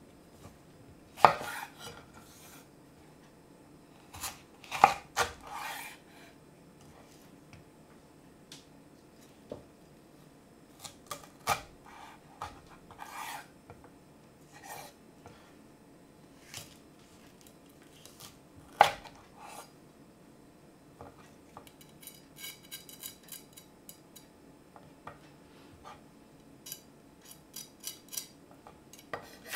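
Chef's knife cutting red chillies on a bamboo cutting board: scattered knocks of the blade on the wood as the chillies are split and deseeded, three of them sharp. About two-thirds through comes a short stretch of quick light ticks.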